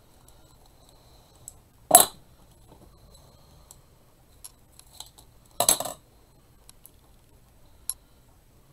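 Two short metallic clatters, one about two seconds in and a longer rattling one a little before six seconds, as metal hand tools (wire cutters, then scissors) are set down on a plastic cutting mat. Small ticks and rustles of artificial flower stems being handled come between them.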